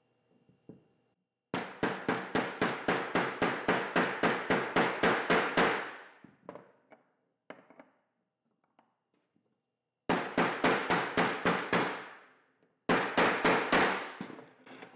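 Rubber mallet tapping a bearing press tool, about four or five blows a second, driving a 6902 cartridge bearing into the shell of a bicycle hub. A long run of taps, a pause with a few single knocks, then two shorter runs until the bearing is seated.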